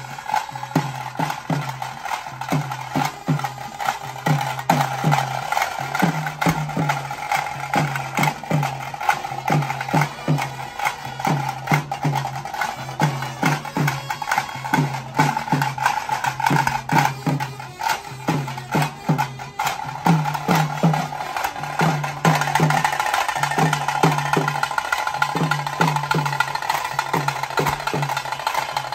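A tase drum band playing a fast tiger-dance (pili vesha) rhythm: sharp stick strokes over a low drum beat that repeats about twice a second.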